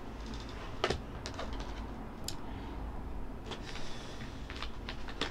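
Tarot cards being handled and set down: scattered light clicks and taps, with a brief rustle of cards a little before four seconds in.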